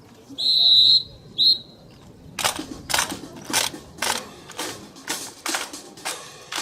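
A drill leader's whistle: one long blast, then a short one. Then a run of sharp, evenly spaced strikes, about two a second, keeping time for the drill.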